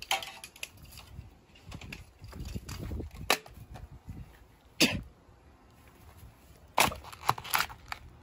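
About six sharp knocks at uneven intervals, three of them close together near the end, over a faint low rumble.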